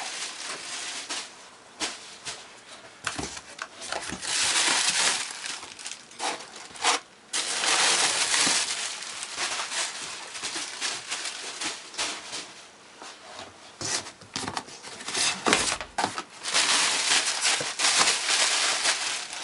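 Packing material rustling and crinkling as it is handled and pulled away, in irregular bursts with a few sharp knocks.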